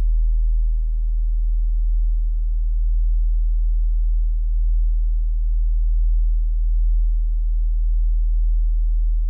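Volkswagen Jetta's engine idling steadily, heard from inside the cabin as a low, even hum.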